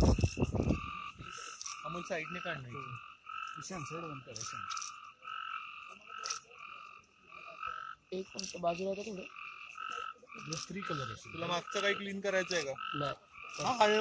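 Frogs calling at night: a short, clear note repeated about twice a second, with lower, pitch-bending calls mixed in at times.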